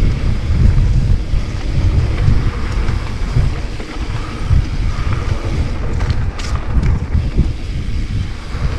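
Wind buffeting the camera microphone as an e-mountain bike rides down a trail, a loud uneven rumble, with a short high hiss about six and a half seconds in.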